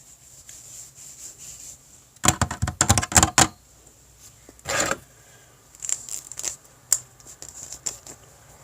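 A hairbrush dragged through hair close to the microphone. About two seconds in comes a crackly cluster of scratchy strokes, the loudest part; a single stroke follows near the middle, then lighter scattered scratches.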